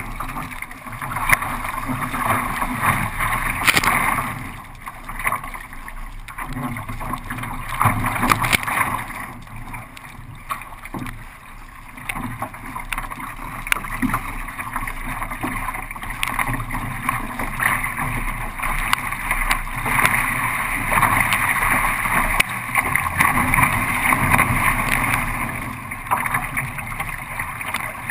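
Water rushing and splashing around a kayak as it is paddled downwind on open ocean swell, with wind noise on the microphone. The sound swells and eases unevenly throughout.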